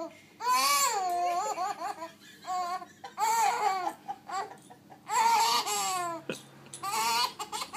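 Baby laughing in several short bursts of high-pitched, squealing laughter with short pauses between them.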